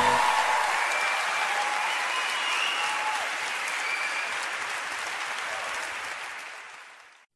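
An audience applauding as a sung hymn stops right at the start. The clapping slowly fades away and cuts off just before the end.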